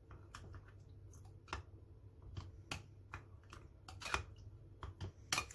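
Spoon stirring a milk drink in a glass, clinking against its sides in irregular light clicks, a few each second.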